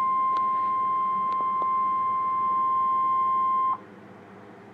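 NOAA Weather Radio's 1050 Hz warning alarm tone: one steady, high beep heard through a weather radio receiver, signalling that a warning broadcast follows. It cuts off sharply about three-quarters of the way through, leaving a faint radio hiss with a few crackles.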